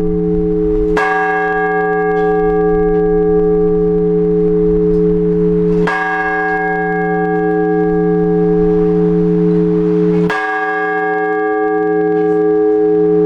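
A large Orthodox church bell struck slowly and evenly, three strokes about five seconds apart, its hum ringing on unbroken between strokes. This is the blagovest tolling that calls the faithful to the all-night vigil.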